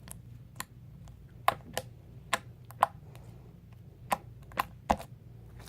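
Sticky homemade slime being pressed and pulled in the hands, giving about ten sharp clicks and pops at irregular intervals over a low background hum.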